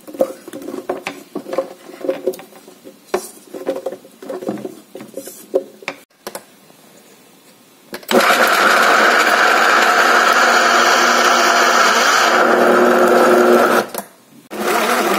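Pieces of roasted raw banana tipped into a plastic mixer-grinder jar with light knocks and clatter. About eight seconds in, the electric mixer grinder starts and runs steadily, grinding the banana with spice powder into a coarse paste. It stops briefly and runs again near the end.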